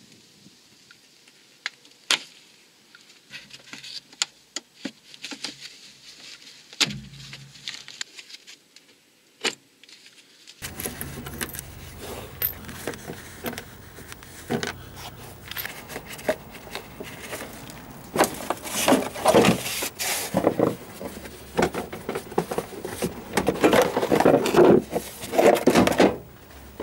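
Plastic wheel arch liner fasteners and liner being worked loose. There are scattered sharp clicks as the clips are pried out with pliers. From about ten seconds in comes a louder, continuous stretch of plastic scraping, rubbing and clicking as the liner is flexed and pulled out of the wheel arch.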